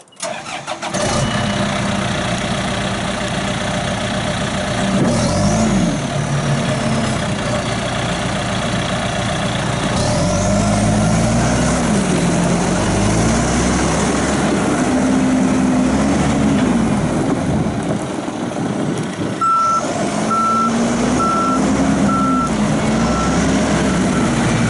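John Deere 310J backhoe's diesel engine running, its speed rising and falling several times as the machine is worked. About three quarters of the way through, the backup alarm starts beeping steadily, about one and a half beeps a second, as the backhoe reverses.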